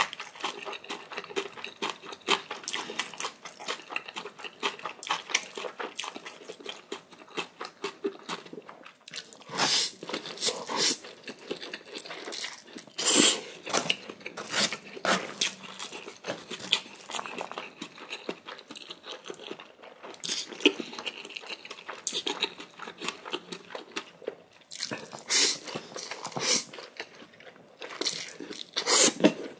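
A person eating close to the microphone: steady chewing broken by loud, crunchy bites, the crunch of chonggak (young ponytail radish) kimchi eaten with instant noodles.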